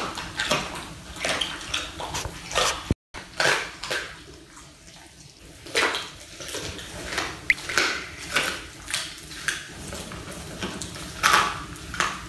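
A Doberman chewing raw chicken: irregular wet crunches of meat and bone, roughly one every half second to second, with a brief break near the third second.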